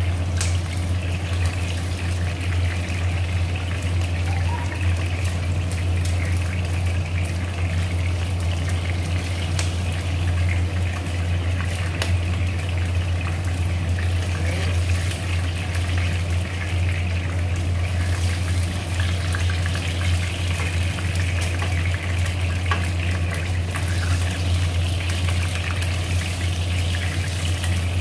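Chicken wings sizzling in shallow frying oil in a wok: a steady crackling hiss, with now and then a light click of wooden chopsticks against the pan. A steady low hum runs underneath and is the loudest part of the sound.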